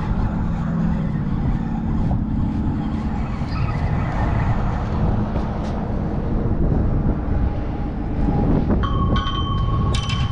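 Road traffic on the bridge: a steady rumble of cars and tyres. About nine seconds in a high, steady whining tone joins it, and there is a sharp click near the end.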